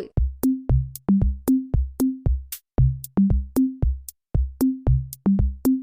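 Electronic backing music with a steady beat and short, low bass notes, about three to four beats a second.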